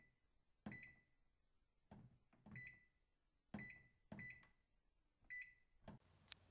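Buttons on a KidKraft toy washing machine's electronic panel being pressed, each press a click followed by a short electronic beep, about six times at an uneven pace, with a few extra clicks between and a sharp click near the end.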